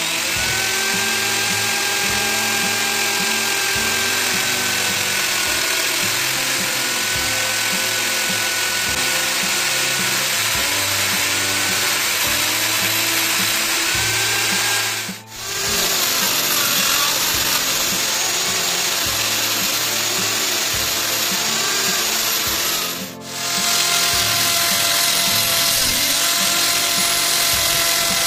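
Electric die grinder and hand drill running together, the grinder's pink stone grinding the damaged point of a lathe live center to re-true it: a steady motor whine over a grinding hiss, the pitch wavering a little under load. The sound dips briefly twice, about halfway and about three-quarters through.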